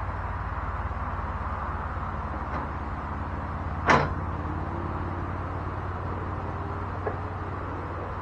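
A steady low background hum, with one sharp clack about four seconds in and a couple of fainter ticks from parts and tools being handled.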